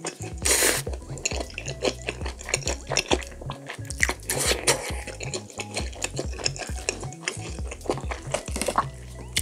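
Close-up mukbang eating sounds of a cheese-filled pork cutlet: a crisp crunchy bite about half a second in, then wet chewing with many small clicks and smacks, and a fork clinking against the plate near the end.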